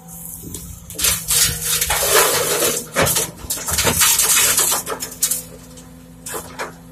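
Sandy soil and stones dumped from an excavator bucket into a steel dump truck bed: a loud rattling rush of dirt and rocks striking metal for about four seconds, over the steady hum of the Sumitomo SH210 excavator's diesel engine.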